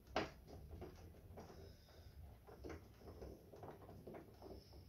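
A screwdriver working a machine screw into the metal mounting plate on the back of a TV, with one sharp click just after the start and then faint, irregular ticks and scraping as the screw turns without seating fully.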